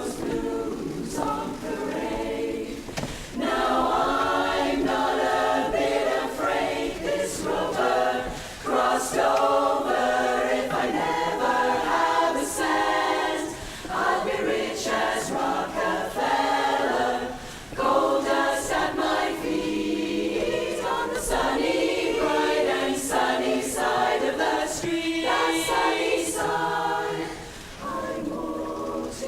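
A women's barbershop chorus singing a cappella in close harmony, with held chords and brief breaks between phrases.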